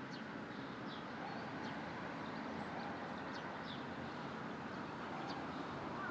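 Barn swallow fledglings giving short, high chirps, about one or two a second, over a steady low background rumble.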